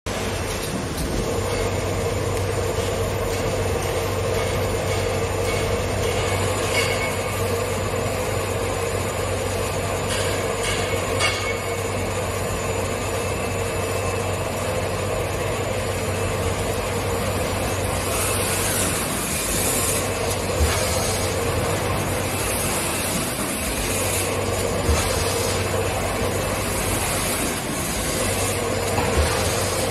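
Automatic toilet-paper packing machine running: a steady mechanical drone with a low hum, broken now and then by short sharp clicks from its moving parts.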